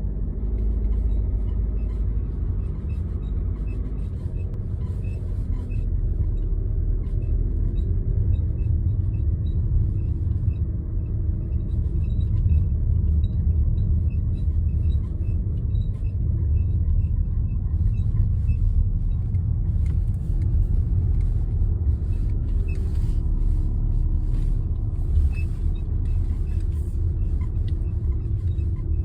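Steady low road and running rumble of a Peugeot 5008 SUV on the move, with faint short creaks repeating every second or so and a few sharper clicks in the second half. The creaks are the creaking noise under the driver's side that the owner is chasing.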